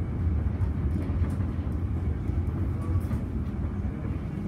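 Electric suburban train running along the track: a steady low rumble with no distinct clanks or horn.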